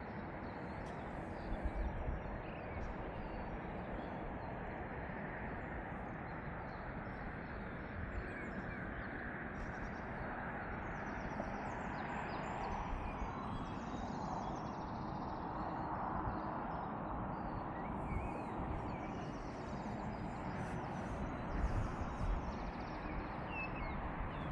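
Outdoor ambience on a walk: a steady wash of background noise with a few faint bird chirps and occasional low bumps.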